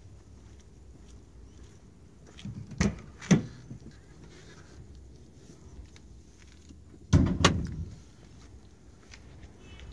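Car door handling: two sharp clunks as the door is unlatched and swung open, then two heavier thumps a few seconds later, over a faint low rumble.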